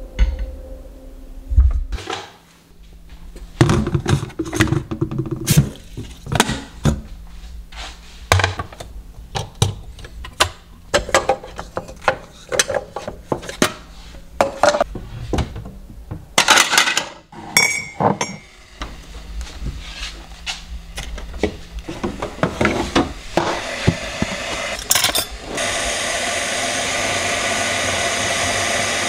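Kitchen clatter: a long run of clinks, taps and knocks from dishes, cutlery, jars and a spoon being handled on a counter. About 25 seconds in, a steady rushing noise starts and holds.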